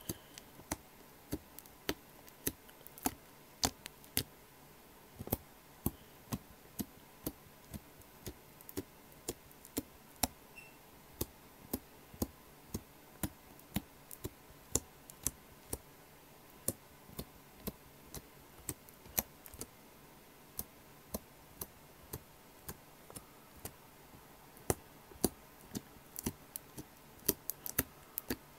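Slime being worked slowly by hand, giving off sharp, irregular clicks and pops about one or two a second as air pockets burst, a little faster near the end.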